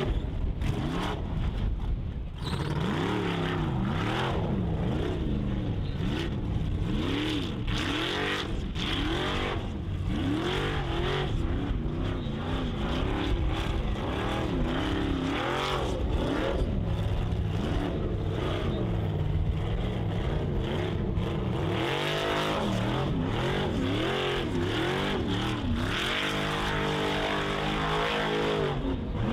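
Formula Offroad race buggy's engine revving hard in repeated surges, rising and falling about once a second, as it claws up a steep dirt hill with its wheels spinning and flinging dirt. Near the end the revs are held high and steady.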